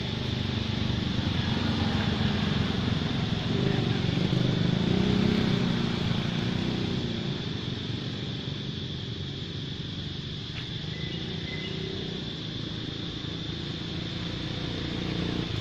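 A passing motor vehicle's engine, growing louder a few seconds in and then fading, over a steady high-pitched drone.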